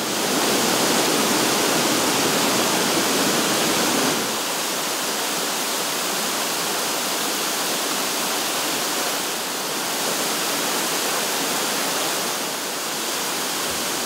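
Waterfalls pouring over boulders into rock pools: a steady rush of falling and splashing water that turns slightly quieter about four seconds in.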